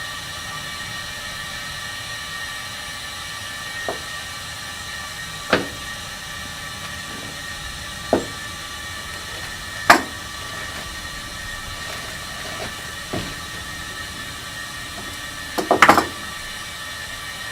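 A steady mechanical hum with a faint whine runs throughout, broken by several sharp knocks and clanks, with a quick cluster of them near the end.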